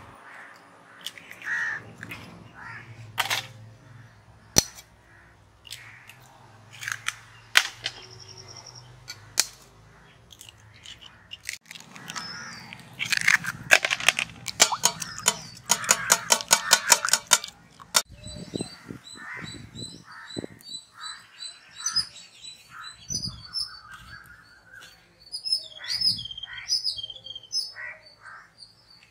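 Eggs being cracked one after another on the rim of a steel bowl: a series of sharp clicks. Then about four seconds of rapid clinking as the eggs are beaten in the bowl. From about eighteen seconds in, birds chirp and call, crows cawing among them.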